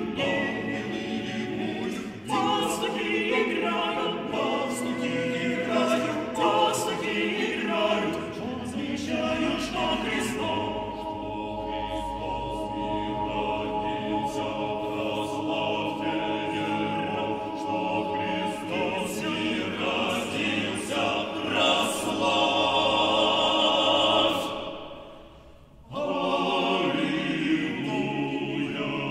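Men's a cappella vocal ensemble of nine voices singing a Christmas carol. The voices swell near the end, break off for about a second, then come back in.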